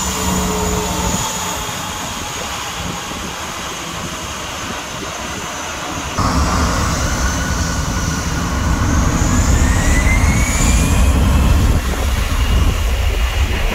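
Twin jet engines of an Airbus A320-family airliner whining at low power, then about six seconds in thrust is set for takeoff: a sudden loud low rumble comes in and the turbine whine climbs steadily in pitch as the jet starts its takeoff roll.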